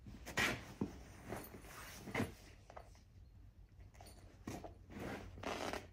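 A pony blowing out through its nose several times in short breathy bursts, the longest near the end, mixed with faint rustling.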